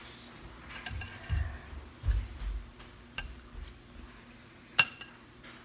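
A spoon or fork clinking against a noodle bowl in scattered light taps while eating, with a few dull thumps in the first half and one sharper clink near the end.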